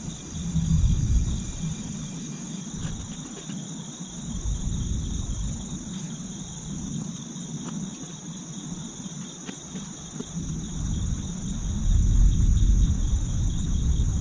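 Steady chorus of insects shrilling in two high pitch bands, over a low rumble that thins out in the middle and swells to its loudest near the end. A few faint clicks as a plastic hardware pack and paper are handled.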